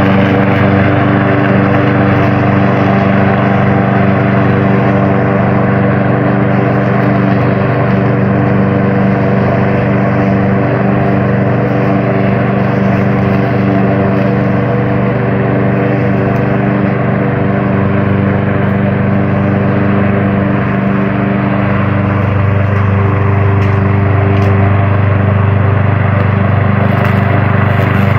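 A lawn mower's small petrol engine running steadily at a constant speed, its low hum slightly stronger about two-thirds of the way through.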